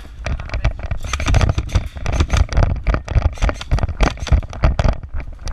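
A rapid, irregular clatter of close knocks and thumps, several a second, throughout.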